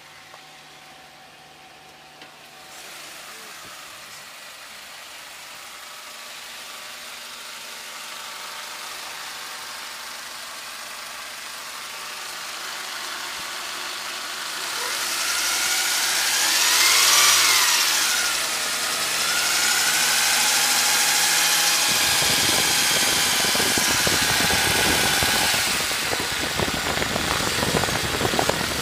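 1992 Toyota Camry engine running with a whine that rises and falls with engine speed, revved up and back down once around the middle. The whine comes from an over-tensioned timing belt.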